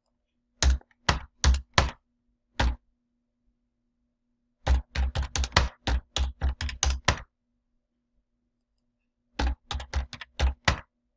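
Typing on a computer keyboard: a few separate key presses, then a quick run of keystrokes lasting about two and a half seconds, and another short burst near the end, as numbers are entered into fields.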